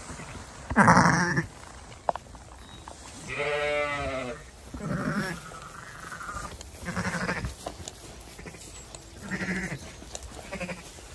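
Zwartbles sheep bleating again and again, about six calls in all. The loudest comes about a second in, and one long, wavering bleat comes about three seconds in.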